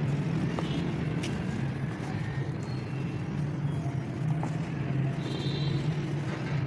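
A steady low motor-like drone, as of a running engine close by, with a few soft crunches and patters of dry red earth being crumbled by hand and poured back into a basin of loose soil.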